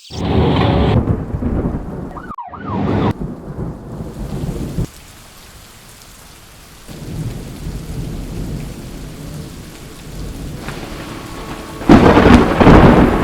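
Thunder rumbling over rain, easing off for a few seconds midway. A much louder burst of thunder comes near the end.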